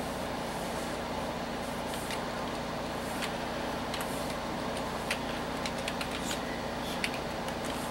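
Scattered keystroke clicks from a computer keyboard, typed slowly, over the steady hum of a running desktop PC's fans.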